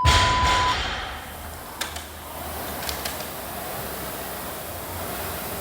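A workout timer's long start beep, then a steady rushing noise with a couple of faint clicks.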